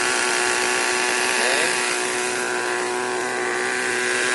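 Small nitro glow-fuel model engine running steadily at a high-pitched buzzing idle.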